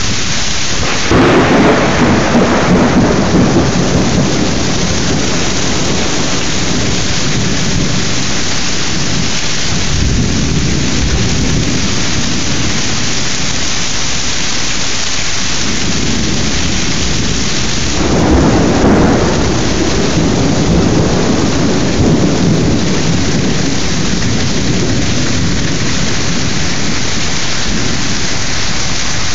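Heavy thunderstorm rain pouring steadily, with a loud thunderclap about a second in that rumbles away over a few seconds, and a second clap about two-thirds of the way through.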